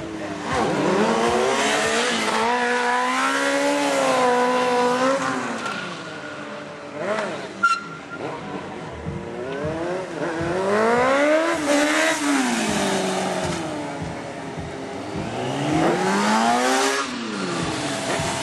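Sport motorcycle engines revving hard and dropping back in repeated waves, their pitch rising and falling during stunt riding. A single sharp crack sounds a little under eight seconds in.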